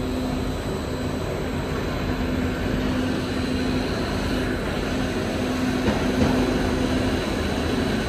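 Steady machinery drone of a running skid-mounted continuous carbonization furnace plant, with a low hum that comes and goes.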